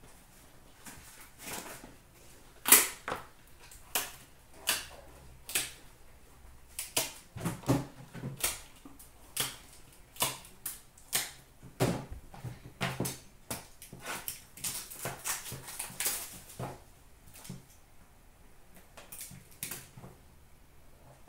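Trading cards and their cardboard box being handled and sorted by hand: irregular sharp clicks and snaps, a few a second, thickest in the middle stretch.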